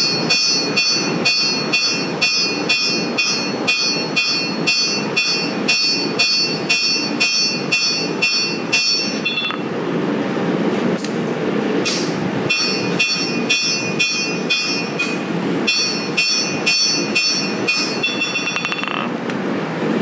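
Hand hammer striking a hot steel knife blade on an anvil, about two and a half ringing blows a second, in three runs with short pauses between them. A steady rumble runs underneath.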